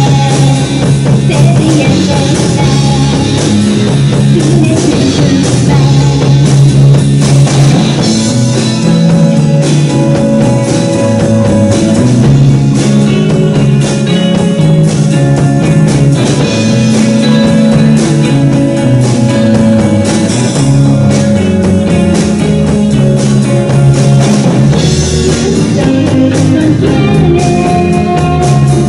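A live rock band playing loud: two electric guitars and a drum kit, with a woman singing.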